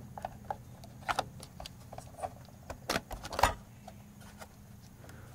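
Small irregular plastic clicks and taps as the cassette control buttons of a Sony CFM-101 radio-cassette are worked into their rubber covers and snapped into place, with two louder knocks about three seconds in.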